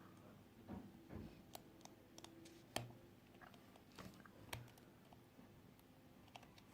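Faint, scattered clicks and light taps of a small screwdriver and tweezers working on a smartphone's internal screws and parts, with a few sharper clicks near the middle.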